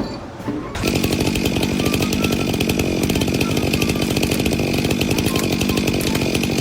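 A power tool running steadily at full speed, starting abruptly about a second in, with a fast regular chatter and a steady high whine.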